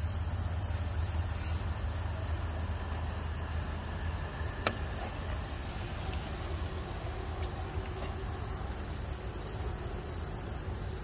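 A steady, high, continuous drone of insects chirring, over a low steady hum, with one faint click about four and a half seconds in.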